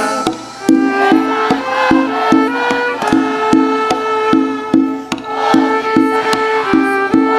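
Instrumental festa junina music without singing: a melody line over a steady, quick percussion beat.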